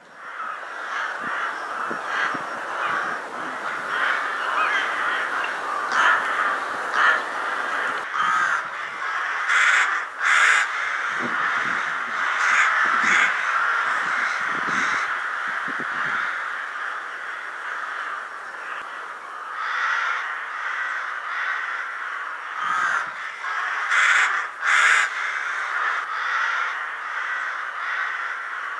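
A large winter flock of rooks cawing continuously, many calls overlapping into a steady din, with louder close caws standing out at intervals. The birds are gathering at an assembly site before going to roost.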